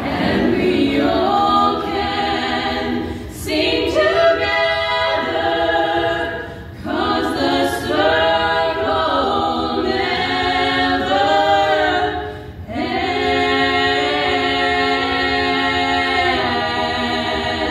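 Women's choir singing in held chords, the phrases breaking off briefly about three, six and a half and twelve and a half seconds in.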